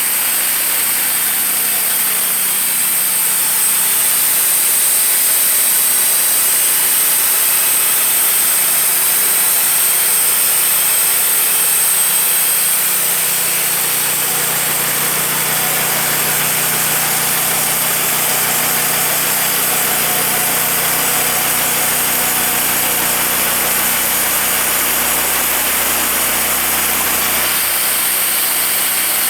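Wood-Mizer portable sawmill running, its engine steady throughout. A low hum joins in about halfway through and drops away near the end.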